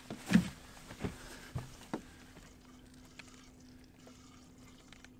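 A few knocks and thumps on a boat deck as a just-caught redfish is lifted and handled, the loudest about half a second in and a few lighter ones over the next two seconds. After that only a faint steady hum remains.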